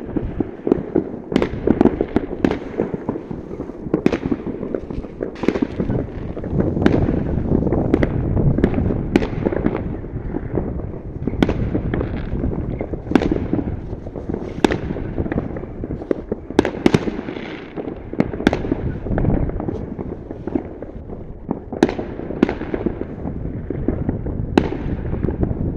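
Fireworks: a continuous rumble of many shells bursting, with sharp bangs cutting through it about once a second.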